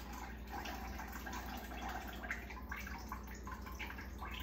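Water splashing and trickling in a kitchen sink, with a steady low hum underneath.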